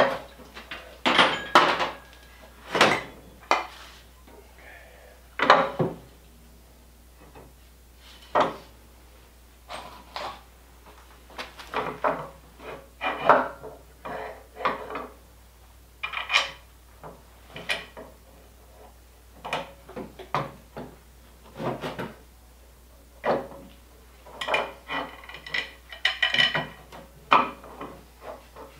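Metal clanking and knocking, irregular and spread throughout, as a small engine and metal parts are handled and fitted onto a snowmobile tunnel; a few clanks near the end ring briefly.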